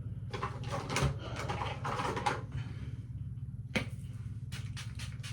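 Rustling and a series of clicks and light knocks from things being handled, over a steady low hum.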